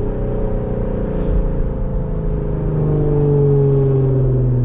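Infiniti Q50's twin-turbo V6 and exhaust running steadily under light throttle while driving, a low drone whose pitch eases down slightly.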